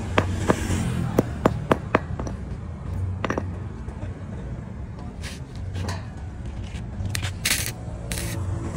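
A hammer taps a galvanized steel square-tube joint, with about six sharp knocks in the first two seconds and one more a little later. Near the end a stick-welding arc strikes and crackles in short harsh bursts.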